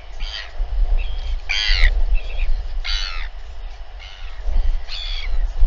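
Birds giving a series of short, harsh calls, about seven in all, the loudest about one and a half seconds in, over a steady low rumble.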